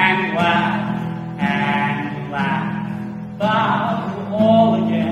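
A man singing a song in short phrases over a strummed acoustic guitar.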